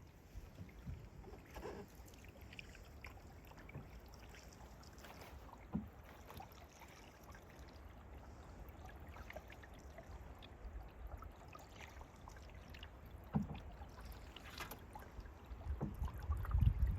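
Canoe being paddled: paddle strokes and water dripping and trickling off the blade, with a couple of sharp knocks. Under it is a low wind rumble on the microphone that gets louder near the end.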